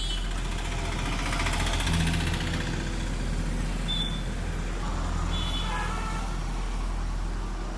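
Road traffic noise: vehicle engines running steadily, with a few short high-pitched tones.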